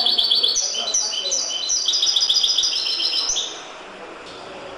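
European goldfinch (chardonneret) singing its trained limpio song: fast runs of repeated, rhythmic high notes that stop about three and a half seconds in.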